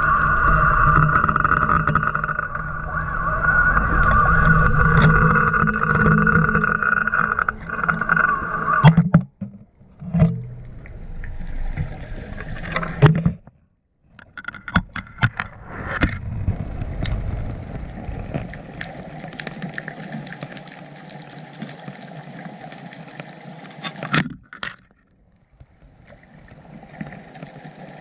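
Boat motor running with a steady hum. After a few abrupt cutouts and a sharp knock, it gives way to scattered clicks and a quieter, muffled watery hiss.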